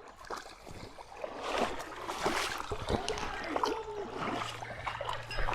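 Creek water splashing and trickling, with scattered small knocks and splashes.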